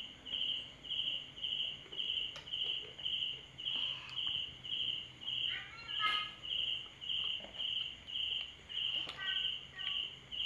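Insect chirping steadily in a high, even rhythm of about two short pulses a second.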